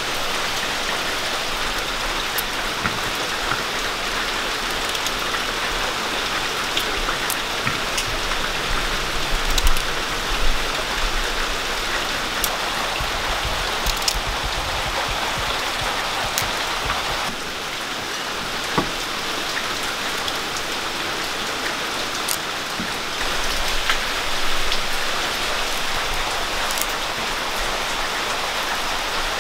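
Steady rain falling, an even hiss. A few sharp clicks stand out from it, the knife cutting through jackfruit seeds held in the hand.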